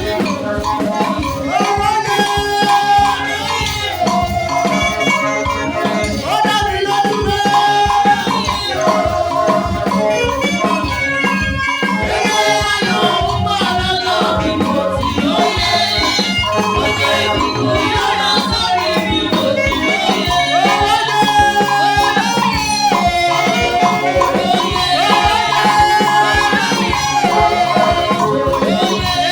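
Upbeat praise music with a fast, steady percussion beat and shaker-like rattling under a melody.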